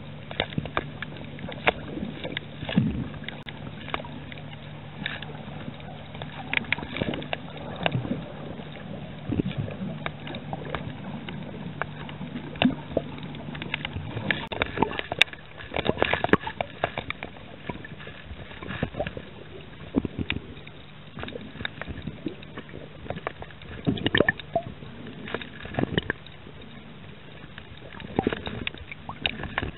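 Underwater sound picked up by a camera in a waterproof housing while snorkelling: muffled sloshing and gurgling water with irregular clicks and crackles. A low steady hum runs under it and stops about halfway through.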